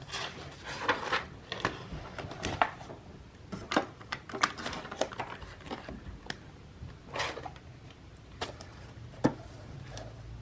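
Hands handling paper cash and a cash-envelope binder: irregular rustles and light clicks, with a few sharper ticks.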